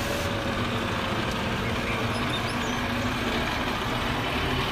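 Diesel engine of a National Express coach running steadily as the coach drives off across a bus yard.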